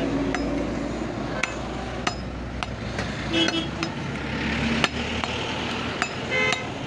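Scattered sharp knocks and clinks of butcher's knives against a wooden chopping block, the strongest about five seconds in, over steady market background noise.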